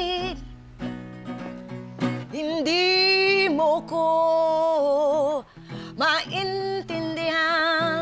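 A woman singing an improvised blues line in Tagalog, holding long notes with vibrato, over strummed acoustic guitar accompaniment.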